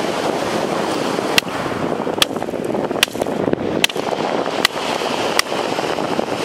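Beach pebbles struck together by hand, trying to split one: six sharp stone-on-stone clacks about a second apart. They sit over a steady rush of wind on the microphone and surf.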